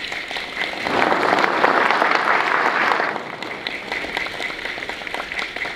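Audience applauding. The clapping swells about a second in, is loudest for about two seconds, then thins out.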